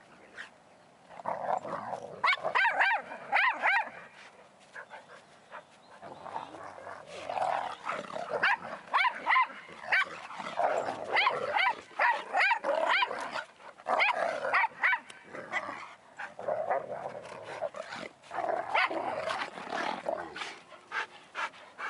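A Newfoundland and an Old English Sheepdog play-fighting, with repeated growls and barks in bursts and a short lull about five seconds in.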